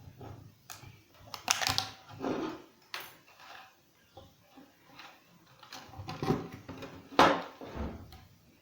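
Hands handling a microwave oven's plastic control panel and tools: scattered clicks, knocks and rustling, with two louder knocks about one and a half seconds in and about seven seconds in.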